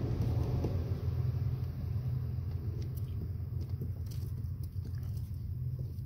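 A steady low rumble, with a few faint, sharp clicks from hands handling a wire crimper and a crimped butt connector on engine wiring.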